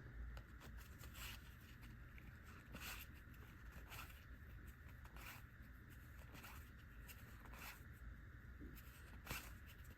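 Near silence with about half a dozen faint, brief rustles of trading cards being handled and slid through the hands.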